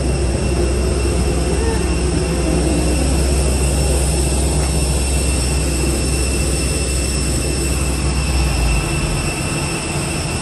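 Steady machinery noise of a parked airliner heard at its boarding door: several high steady tones over a heavy low rumble, the rumble dropping away about nine seconds in.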